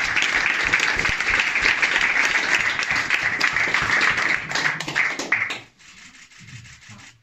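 A small audience clapping and applauding, dying away sharply about five and a half seconds in.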